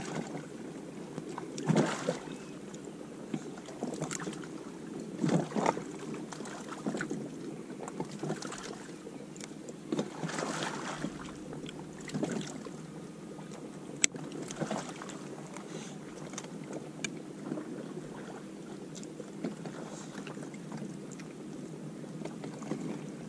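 Kayak on the water: a steady wash of water against the hull, with short irregular splashes every second or two, the loudest about two seconds in and again about five seconds in.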